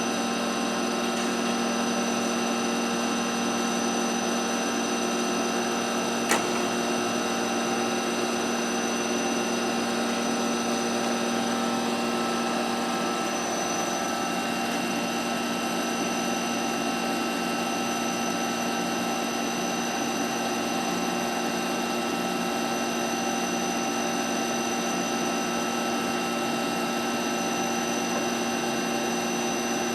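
Cincinnati plain hydraulic cylindrical grinder running, its grinding spindle and hydraulic table drive on, with the table traversing slowly under pick feed. It makes a steady mechanical hum with several steady tones, and a single sharp click comes about six seconds in.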